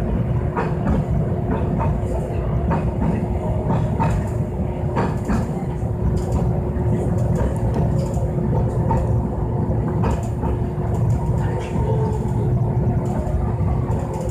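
Toyohashi Railway Mo 780 tram running along street track, heard from inside the car: a steady low rumble with a constant hum and irregular clicks of the wheels over the rail.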